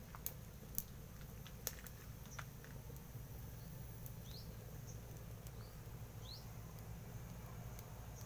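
Faint wood fire burning in a cast-cement stove: a few sharp crackling pops in the first couple of seconds over a low steady rumble, with a few short rising chirps later.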